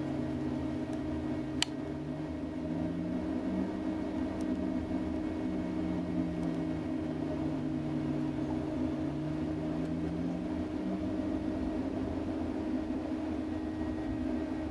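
Light hum of a home wind turbine's permanent-magnet alternator heard through the house wall, its pitch slowly rising and falling, over the steady hum of a cold-air-return booster fan. A single sharp click about one and a half seconds in.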